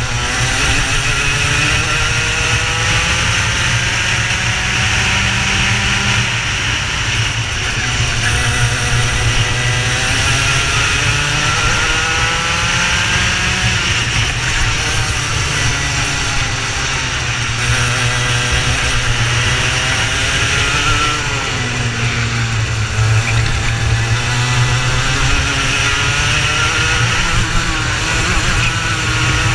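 Racing engine at racing speed, heard onboard, its revs climbing and dropping again and again as it accelerates and slows for corners.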